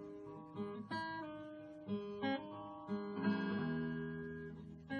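Outro music: acoustic guitar, plucked and strummed chords with a new chord about every second.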